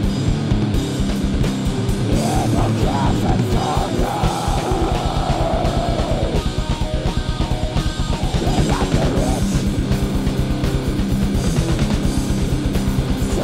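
Heavy rock song with guitar and fast, steady drumming. A long held note sounds over it from about two to six seconds in.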